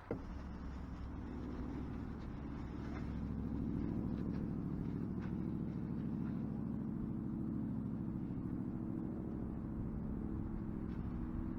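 An engine running steadily. It starts abruptly and swells slightly a few seconds in.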